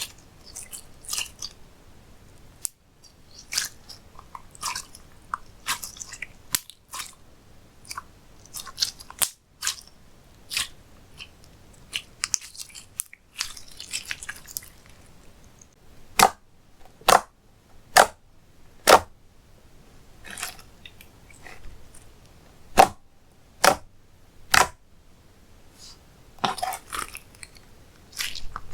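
Slime being squished and stretched by hand: wet, sticky squelching broken by sharp clicking pops of trapped air. In the second half come two runs of evenly spaced pops, about one a second.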